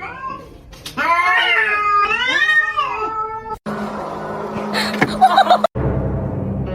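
Domestic cat meowing: two long, drawn-out meows that rise and fall in pitch. After a cut comes a noisier stretch with a few short, sharp sounds.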